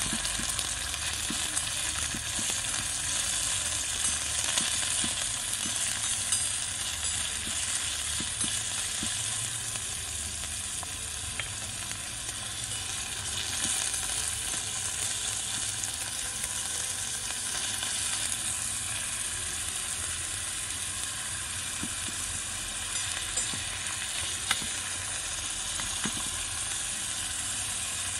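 Chopped meat sizzling in oil in a miniature iron wok over a small fire, steadily, with small clicks and scrapes from a little metal spoon stirring it against the pan.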